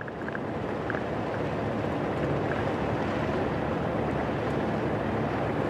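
Steady rushing rumble of a vehicle driving over a dirt track, with engine, tyre and wind noise blended together. It rises over the first moment and then holds level.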